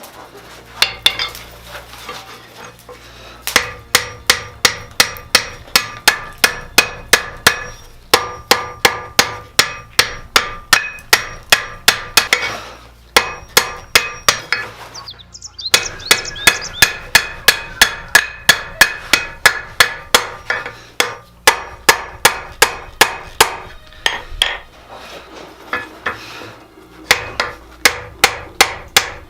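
Blacksmith's hammer forging steel on an anvil: a steady run of ringing blows, about two a second, lighter at first and broken by a couple of short pauses.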